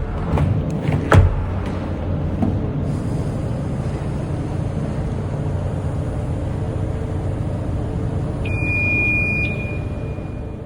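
Ferrari 296 GTB's twin-turbo V6 running at a steady idle, with a few sharp knocks in the first second. A brief high tone sounds near the end.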